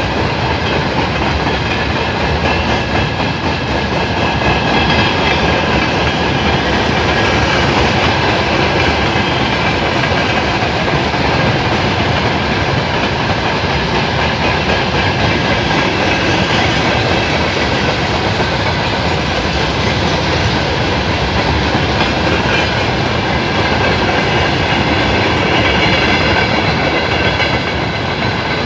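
A passenger train rolling past steadily, with a continuous noise of cars and wheels on the track and some thin high tones over it.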